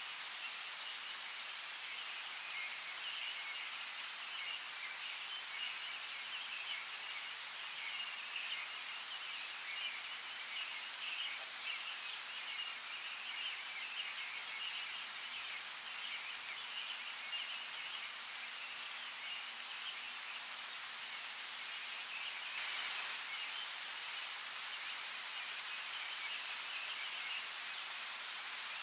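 Steady rain falling, with scattered raindrop ticks, under a continuous chatter of high chirping birds. The rain swells briefly a little past two-thirds of the way through.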